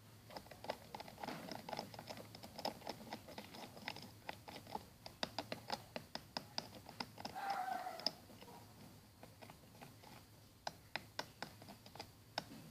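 Faint, quick clicking and tapping of a stirrer scraping against a container while stirring thick shampoo, dense for about eight seconds, then only a few scattered taps. A short pitched sound comes about seven and a half seconds in.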